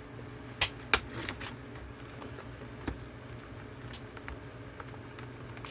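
A knife cutting into and prying at product packaging: a few sharp clicks and snaps, the loudest about a second in, over a steady low hum.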